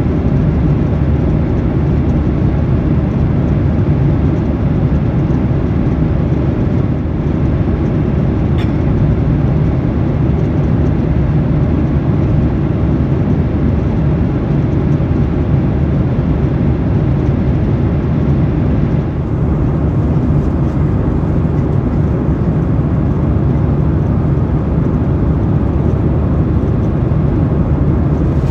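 Steady rumble of a Boeing 737-800's CFM56-7B engines and airflow heard inside the passenger cabin, unchanging, with one faint tick about nine seconds in.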